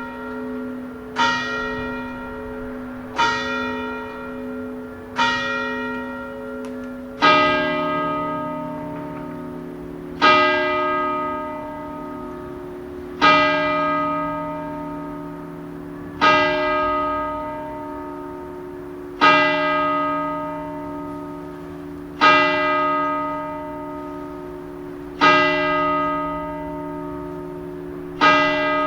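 Church bells tolling slowly, each stroke ringing on long after it is struck. A higher bell sounds three times, about every two seconds. About seven seconds in, a deeper, louder bell takes over, tolling about every three seconds.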